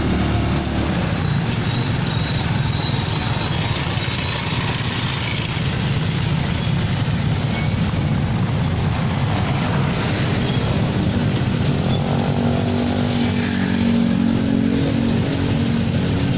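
Steady rumble and hiss of a truck driving through town traffic, with a humming engine note coming in about twelve seconds in.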